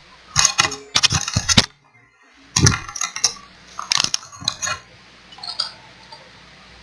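A series of sharp clinks and taps from small metal tools being picked up and set down on a workbench. A cluster comes in the first second and a half, then single knocks about two and a half and four seconds in.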